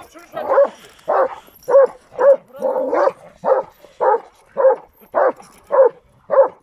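A dog barking repeatedly in a steady rhythm, about two barks a second, with one drawn-out bark near the middle.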